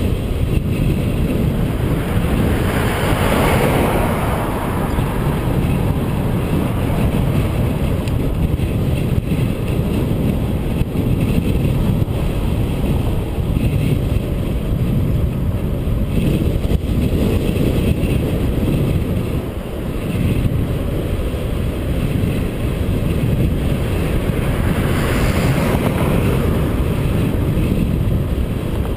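Wind rumbling on the microphone of a camera riding along on a bicycle at speed, with road noise underneath. A vehicle swells past about three seconds in and another near the end.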